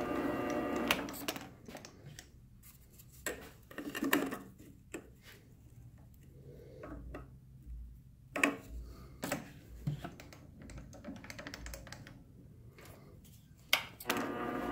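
Small metal lathe running, then stopping about a second in. Scattered clicks and light metal knocks follow as a washer and an abrasive disc are handled and test-fitted on the arbor in the chuck. The lathe starts up again near the end.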